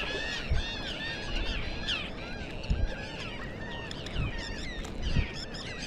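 A flock of water birds calling over the water: many short, overlapping calls in a steady chatter, with a few low thuds.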